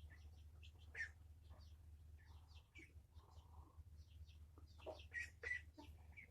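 Near silence: a low steady hum with scattered faint light ticks and clicks, a few of them a little louder about a second in and near the end.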